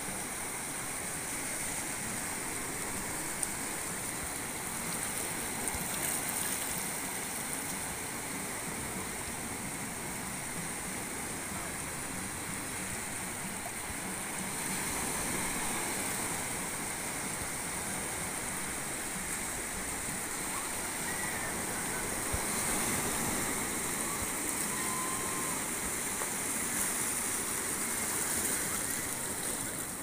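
Small sea waves breaking and washing over a shallow, rocky shore: a steady rushing hiss of surf that swells a little about halfway through and again near the end.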